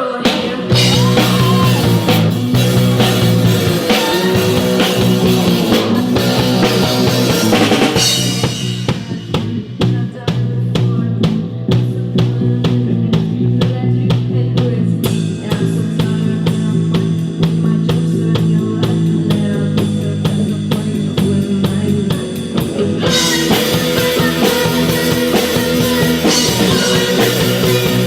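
Rock song played by a band on drum kit and bass. The middle stretch thins out to regular drum hits over a steady bass line, and the full band comes back in near the end.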